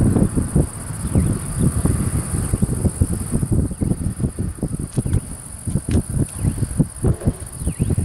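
Wind buffeting the microphone in irregular low gusts, over a steady, high chirring of insects in the fields.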